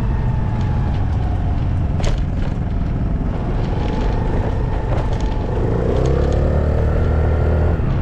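Vehicle engine running while under way, its pitch climbing for about two seconds and then dropping off near the end. A single sharp knock about two seconds in.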